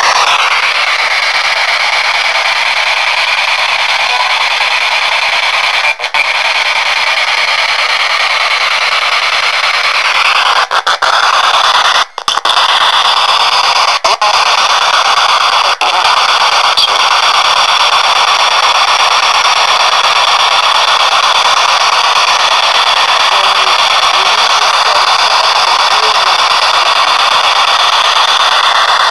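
P-SB7 spirit box sweeping through radio stations: loud, steady static with snatches of radio voices, played through an external speaker. It is broken by a few brief dropouts, the deepest about twelve seconds in.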